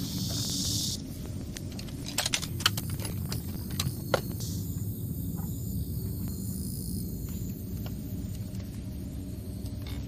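Sharp clicks and knocks of camping gear being handled, clustered between about two and four seconds in, over a steady low outdoor rumble. A high hiss stops abruptly about a second in, and faint high insect chirring runs through the second half.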